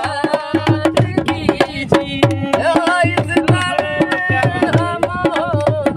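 Dholak played with a quick, steady beat of hand strokes under a voice singing a ghazal melody.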